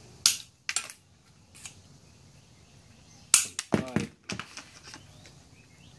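Sharp snaps of a hand-held 45° miter shear cutting through a white CES fabric-track strip, twice in quick succession. These are followed a few seconds later by a cluster of loud clacks as the cut strip is handled and set down against the wooden frame.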